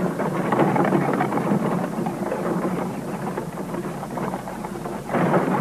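Horse-drawn carriage rolling over a gravel drive: its wheels crunching the gravel in a steady crackling rumble, which gets louder about five seconds in.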